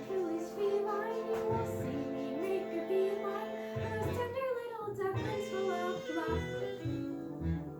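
A song from a stage musical: a young voice singing a melody over an instrumental backing with a steady pulsing bass.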